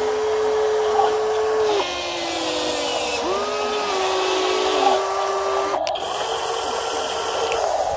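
Small electric motors of a WL Toys 16800 RC excavator whining as they drive the boom and arm. Each run starts with a quick rise in pitch, holds a steady whine and stops. There are two main runs, the second starting about three seconds in, and a fainter one near the end.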